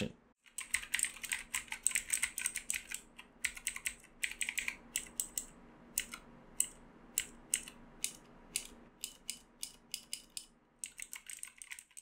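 Typing on an E-Element Z88 mechanical keyboard fitted with Outemu Blue clicky switches: a fast, irregular stream of sharp keystroke clicks with a few short pauses.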